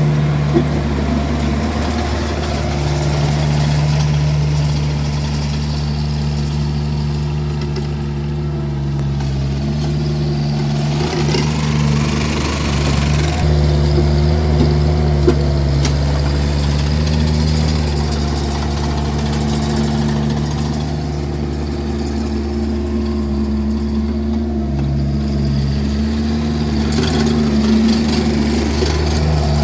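Vermeer mini skid steer's engine running steadily, with a brief whine that rises and falls about halfway through and a few light knocks.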